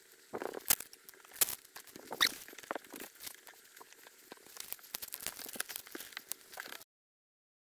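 Hands fitting a carbon fiber door-pillar trim: scattered taps and clicks and crinkling of the adhesive tape's red backing liner as the trim is pressed on and smoothed with a plastic squeegee, with a short high squeak about two seconds in. The sound cuts off to dead silence near the end.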